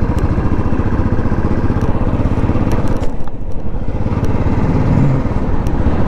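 Motorcycle engine running steadily, a fast low pulsing under a hiss of road and wind noise.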